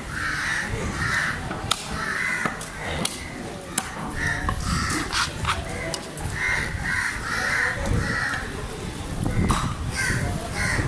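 Crows cawing over and over in short runs of calls, with scattered sharp knocks of a knife and cleaver striking the wooden cutting block as a large tuna is cut up.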